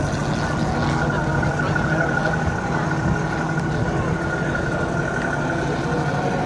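Single-engine World War II-era piston fighter plane flying overhead, its engine a steady drone with a constant whine.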